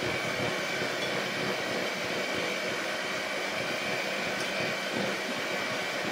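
Moulinex electric hand mixer running steadily, its twin beaters working dry flour into thick cake batter, with a steady high motor whine over the whirr.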